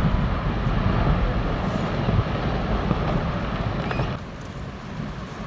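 Steady low rumble and rush of water from a glacier collapsing into the sea and the wave it raises, dropping in level about four seconds in.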